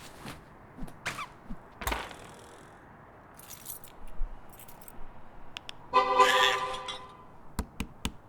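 Foley and sound effects for an animated robot scene: scattered soft clicks and swishes, then a loud pitched tone about six seconds in that lasts roughly a second, followed near the end by a quick run of sharp clicks.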